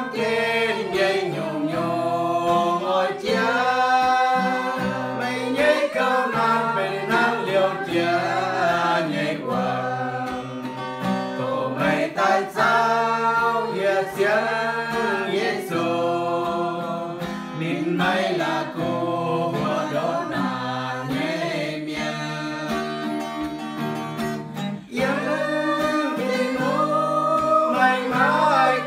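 A small mixed group of men and women singing a song in the Iu Mien language together, accompanied by a strummed acoustic guitar.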